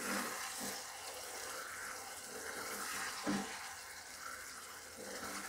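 Pineapple pickle simmering in a nonstick pot as it is stirred with a spatula: a faint, steady sizzling hiss, with one soft knock a little after three seconds in.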